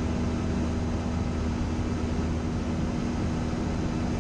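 Cessna 172 single piston engine and propeller droning steadily in cruise flight, heard from inside the cabin.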